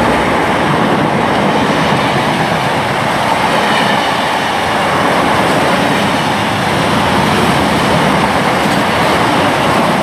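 Freight train hauled by a Class 66 diesel-electric locomotive passing through, a loud, steady rumble of wheels and wagons on the rails.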